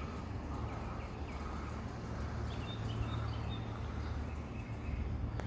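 Steady outdoor background noise with a low hum, and a few faint, short bird chirps around the middle.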